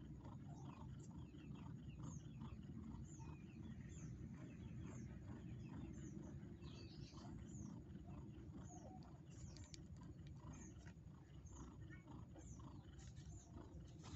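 Domestic mother cat purring steadily while nursing newborn kittens: a low, continuous rumble, with faint short high chirps and small ticks about twice a second over it.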